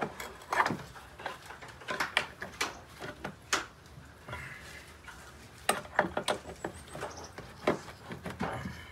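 Pliers clicking and scraping on the steel compression strut of a Simpson Strong-Tie BVLZ brick veneer bracket as it is wound out by hand toward the ledger board. Irregular sharp metal clicks and knocks, several a second in clusters.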